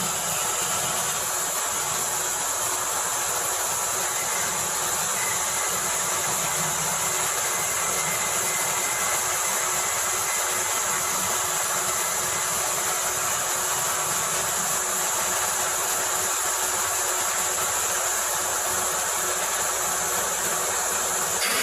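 Mini CNC wood-turning lathe running: the spindle turns steadily while the tool cuts the outside of a small wooden workpiece. It gives a steady high whine over an even hiss.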